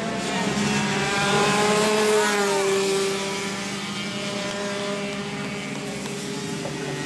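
Several 125cc two-stroke racing kart engines running at full race pace, their overlapping notes rising and falling as the karts accelerate and brake through the corners. Loudest about two seconds in.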